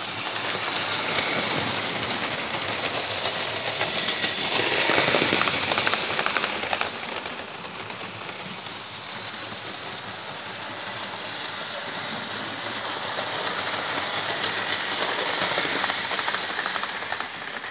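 Hornby OO gauge model Coronation Scot trains running on the layout's track: a steady rattling hiss of wheels on rail and motors, swelling as a train passes close, about five seconds in and again near the end.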